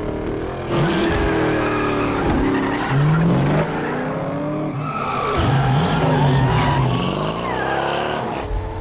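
Several muscle car engines revving hard as the cars race, their pitch rising and falling and overlapping, with tyres squealing and skidding as the cars slide through a turn.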